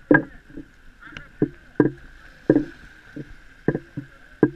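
Small waves slapping and sloshing against a camera at the water line, in quick irregular hits about two or three times a second.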